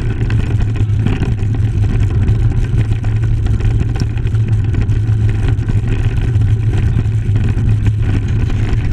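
Mountain bike rolling over a loose dirt and gravel trail, heard from a handlebar-mounted camera: a steady low rumble of wind and tyre noise with constant small clicks and rattles.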